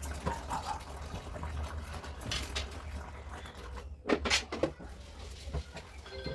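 Light clatter and knocks of household items and fridge parts being handled during fridge cleaning, with a pair of sharper knocks about four seconds in, over a low steady hum.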